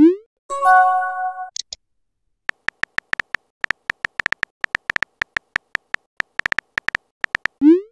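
Phone keyboard tap sound effects: rapid, irregular clicks as a text message is typed out. A short rising swoosh marks a message being sent at the start and again near the end, and a brief electronic chime sounds just after the first swoosh.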